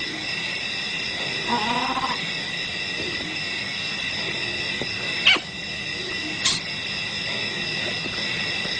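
Steady chorus of insects in the bush, several high even tones held throughout, with a short wavering animal call about one and a half seconds in and a couple of sharp clicks later.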